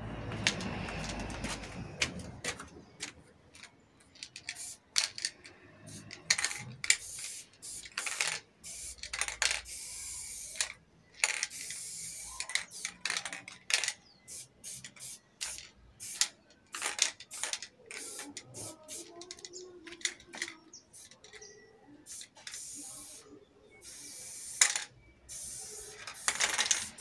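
Aerosol spray paint can hissing in many short bursts of uneven length, some a second or two long, as paint is sprayed onto a wall.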